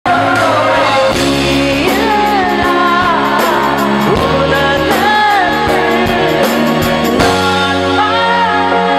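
Music cuts in suddenly: a Tamil film song performed by a singer with band accompaniment through a PA sound system.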